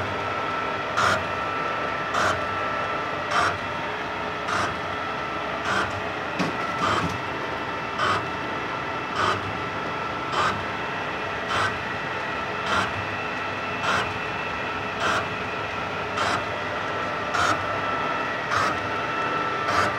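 Colchester Mascot lathe turning a crankshaft at 48 rpm under power feed, with a steady gear whine. A short, harsh cutting burst comes once per turn, a little over once a second, as the tool bites on each revolution of the crank in an interrupted cut.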